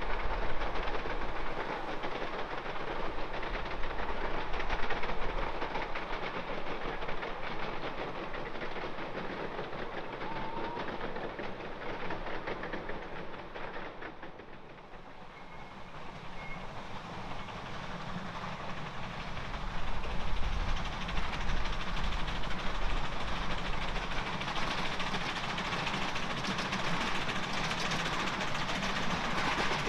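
10¼-inch gauge miniature railway passenger trains running, wheels clattering over the rails. The sound dips briefly near the middle, then grows louder as a steam locomotive hauling loaded passenger cars comes closer.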